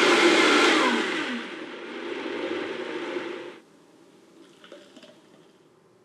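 Countertop blender running, blending a shake of milk, greens and frozen fruit; about a second in its motor slows with a falling whine, it runs on more quietly, then cuts off suddenly after about three and a half seconds.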